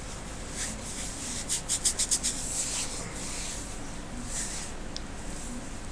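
Scratchy rubbing sounds close to the microphone, including a quick run of about six short strokes about two seconds in, over a steady low hum.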